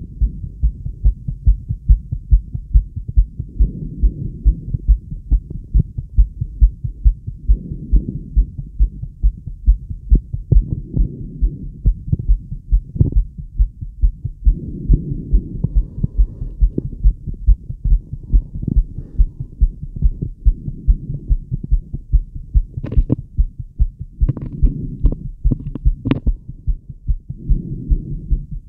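A woman's fast heartbeat heard through a Littmann stethoscope's chest piece pressed to her chest: a rapid, regular train of low thuds. A soft whooshing rises and falls every few seconds, and a few sharp clicks come near the end.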